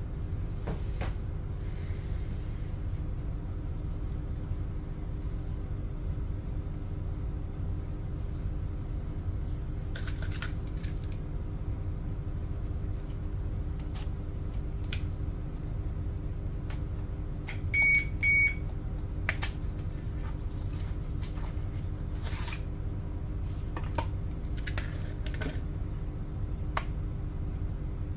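Packaging being handled: scattered clicks and rustles of cardboard and plastic as a utility knife slits a small box's seal and a plastic case is opened, over a steady low hum. Two short high beeps sound about halfway through.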